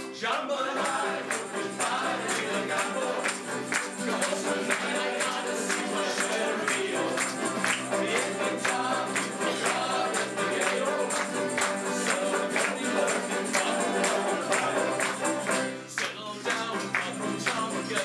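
A group of men singing together to accordion, with banjo and guitar strummed in a steady rhythm. The music dips briefly about two seconds before the end, then carries on.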